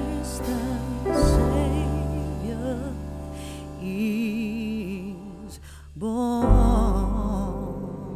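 Background music: a wavering melody with vibrato over held low notes, dipping briefly about six seconds in before swelling again.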